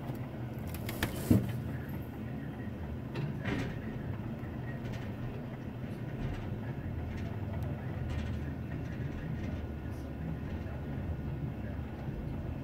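Goat kids' hooves knocking on cellar doors as they play, heard through a window: a sharp thump about a second in, a smaller knock a couple of seconds later, over a steady low rumble.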